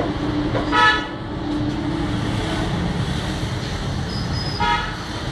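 Two short vehicle horn toots from the street, one about a second in and the other near the end, over a steady background of traffic noise.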